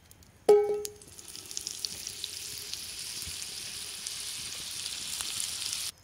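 A sharp metallic clang with a short ring about half a second in, then hot fat in a cast iron skillet sizzling and crackling steadily as butter foams in the oil. The sizzle cuts off suddenly near the end.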